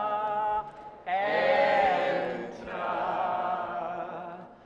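Voices singing long held notes, chant-like and wavering. A brief break comes about a second in, and the next phrase opens with a falling glide.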